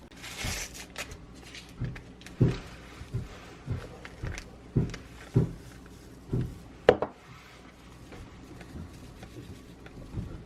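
A short hiss, then a run of soft thumps about every half second, ending in one sharp click about seven seconds in, followed by faint handling noise.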